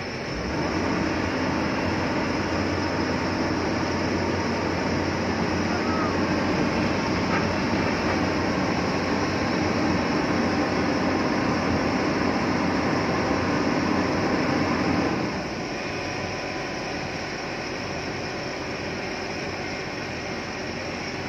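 Hyundai 245 excavator's diesel engine running steadily under load, then dropping to a quieter, lower run about fifteen seconds in.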